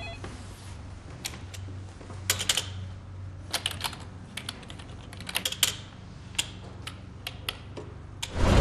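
Computer keyboard being typed on, keystrokes coming singly and in quick irregular runs. A much louder sound, music by the tags, swells in just before the end.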